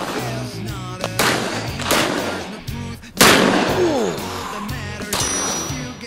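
Shots from a Colt Python .357 Magnum revolver, three sharp reports a second or two apart, the loudest about three seconds in, over background music with a steady bass line.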